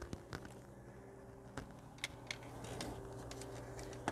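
Faint steady hum of a laptop cooling pad's small fans running, with a few light clicks and a brief rustle from a laptop being handled.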